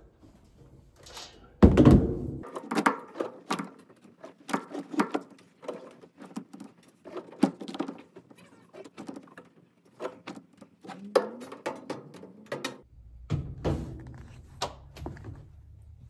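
Laundry being handled at a top-loading washing machine: a loud thunk about two seconds in, then a long string of short knocks, clacks and rustles as the washer lid is worked and clothes are moved into a plastic laundry crate.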